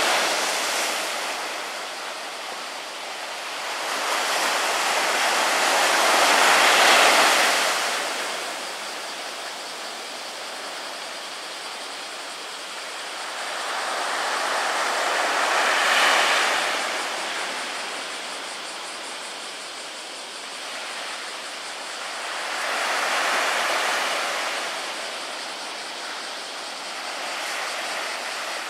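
Small sea waves breaking and washing up a sand beach, the surf swelling and fading roughly every seven to nine seconds.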